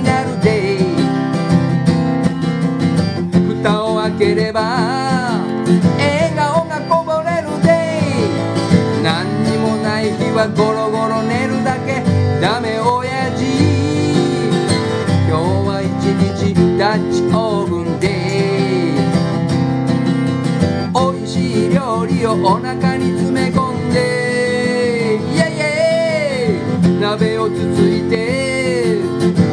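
Country-style acoustic guitar music with a lead melody line that slides up and down in pitch.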